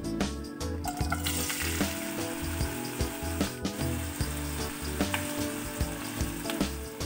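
Sliced onions dropped into hot oil in a pan: a sizzle starts about a second in and keeps going as they fry. Background music with a steady beat plays under it.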